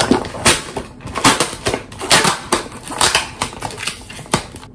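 Brown paper mailer and cardboard box being handled as a parcel is unpacked: short, irregular crinkling and crackling of paper and cardboard, about two loud rustles a second.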